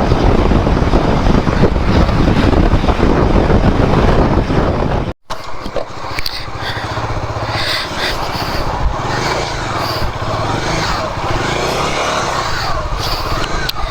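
Wind rushing over the microphone on a moving Royal Enfield Himalayan 411 motorcycle, the engine running underneath. About five seconds in the sound cuts off abruptly. It gives way to a quieter steady low hum with scattered high wavering sounds.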